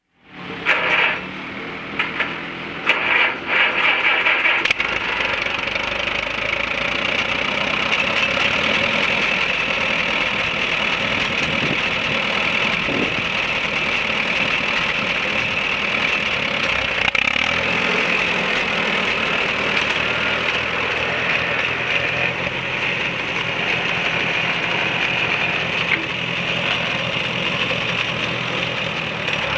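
Allis-Chalmers WD45 tractor engine running steadily as the tractor drives slowly. It opens with a few loud, uneven bursts of noise in the first five seconds.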